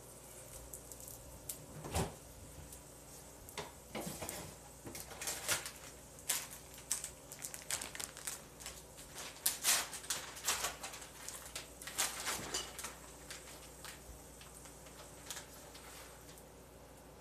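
Faint, irregular clicks, taps and short rustles of kitchen handling while food is prepared. They are busiest in the middle and thin out near the end.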